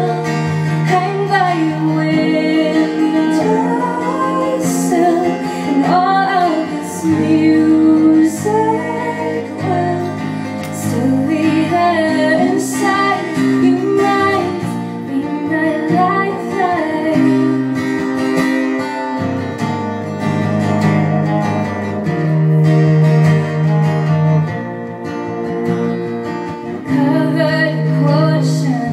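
Two acoustic guitars strumming an instrumental passage of a live folk-pop song, with a wordless sung melody over them.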